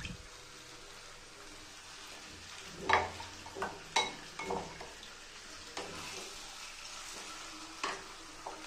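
Marinated puti fish and onions frying in mustard oil with a steady sizzle, broken by a handful of short, sharp knocks of a wooden spatula.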